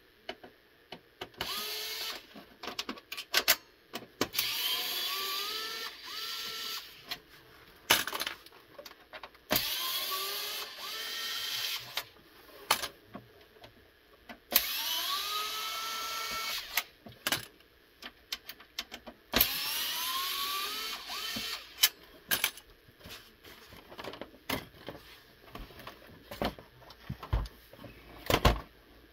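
Electric screwdriver driving screws into an Xbox 360 S's metal chassis shield. It makes about five short runs, each a whine that rises in pitch and then holds. Between runs there are clicks and clatter of parts, and a few low knocks near the end as the case is handled.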